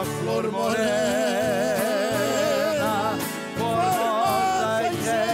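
Sertanejo country song with instrumental backing. Voices hold long notes with a wide vibrato, falling briefly silent about three and a half seconds in before the next line begins.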